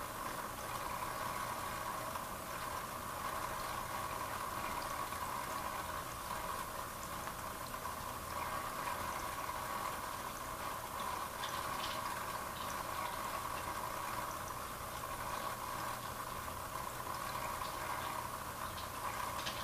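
Aquarium water bubbling and trickling steadily, the sound of the tank's running filtration or aeration.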